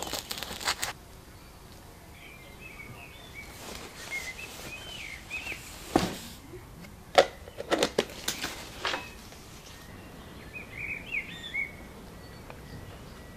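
Small birds chirping in short, quick calls, in two spells. Crackling handling noise in the first second, then a few sharp knocks and clicks in the middle, as camera gear is packed into a padded camera bag.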